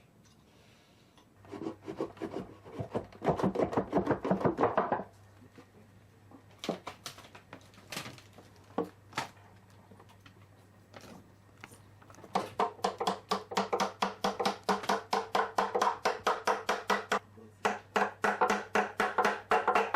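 Rapid light hammer taps, about five a second, in two runs: one near the start and one from about twelve seconds on. A few single taps fall between them.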